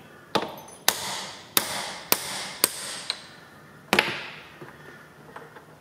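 Hammer blows on a steel pin used as a drift on a domed Welsh plug in a tractor levelling box: about seven sharp metallic strikes, roughly half a second apart, each with a short ringing tail, stopping about four seconds in. The blows flatten the domed plug so that it spreads and seals in its bore.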